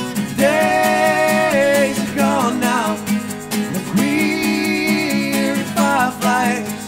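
Live acoustic duo music: a steadily strummed acoustic guitar, with a wordless lead line over it that alternates long held notes and short wavering phrases.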